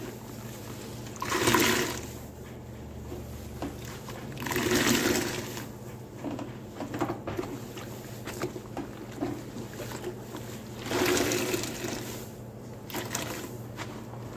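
Soaked, soapy sponge squeezed three times, each squeeze a gush of water lasting about a second, with small wet squishes in between.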